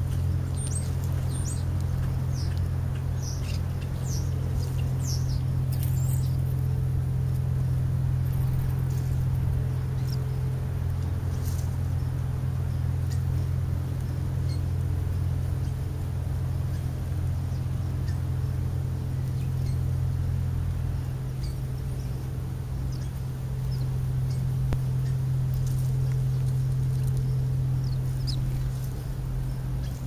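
House sparrows chirping in short calls, a quick run of them in the first few seconds and a few more near the end, over a steady low hum.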